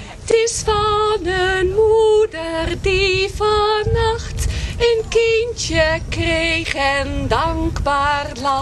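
A woman singing solo into a microphone, holding sustained notes with a wavering vibrato in short phrases.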